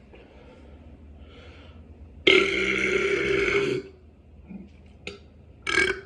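A person deliberately burping: one loud, drawn-out belch of about a second and a half, starting about two seconds in, then a much shorter loud burst near the end.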